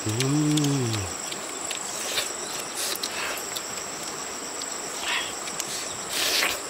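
A steady, high-pitched insect trill, crickets, runs underneath. A short hummed "mmm" from a man comes in the first second. A few brief rustling, crunching noises follow, the last near the end as he bites into the cooked fish.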